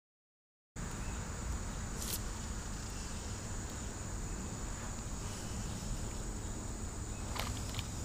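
Steady high-pitched insect chorus over a low rumbling outdoor background. It starts about a second in after a moment of dead silence, and a few faint brief ticks come through it.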